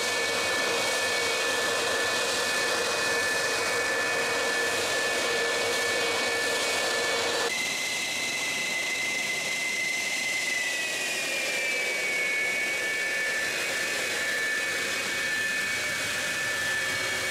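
Fighter jet engines whining steadily, a dense rush with several high whistling turbine tones. About seven and a half seconds in, the tones change abruptly. Between about ten and twelve seconds the main whistle glides a little lower in pitch.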